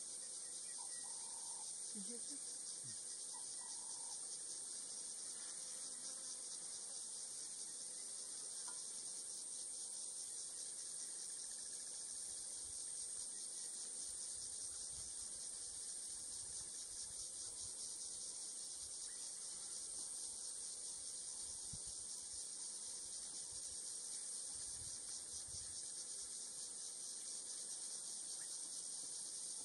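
Steady high-pitched insect chorus, unbroken and unchanging in level.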